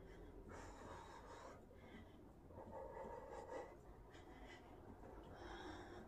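Near silence: faint room tone with three soft, short noises, about two seconds apart.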